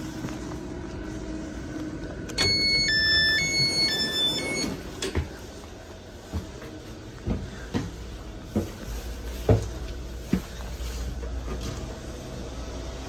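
A short electronic chime plays a quick melody of several clear notes about two seconds in, lasting around two seconds. It is followed by a string of irregular footsteps thumping as someone climbs aboard a train and walks across the vestibule floor, with a low rumble rising near the end.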